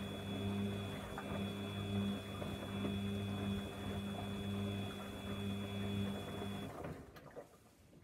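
Samsung front-loading washing machine's drum motor running with a steady hum and a high whine as the drum tumbles a load during the wash, then stopping near the end, followed by faint clicks.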